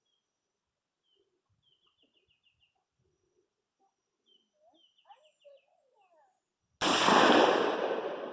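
Single shot from a Smith & Wesson M&P AR-15 rifle, starting suddenly near the end and dying away in a long echoing tail. Before it, small birds chirp in short trills.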